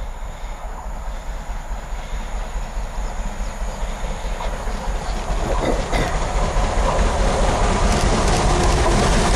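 Rebuilt Bulleid Merchant Navy class steam locomotive 35028 Clan Line approaching at speed at the head of a passenger train, growing steadily louder as it draws near and starts to pass, with its wheels clattering over the track.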